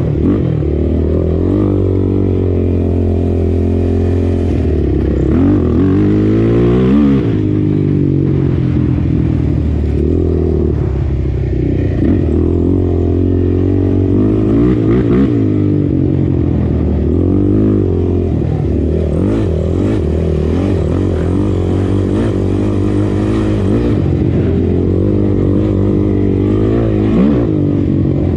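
Sport quad's single-cylinder four-stroke engine running hard on a trail ride, revving up and dropping back again and again as the throttle is worked and gears are shifted, heard from on board.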